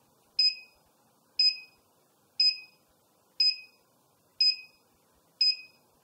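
iGET M2B GSM alarm panel beeping once a second, six short, sharp beeps that each fade quickly. It is counting down its 10-second alarm delay after the motion detector has been triggered, before the alarm goes off.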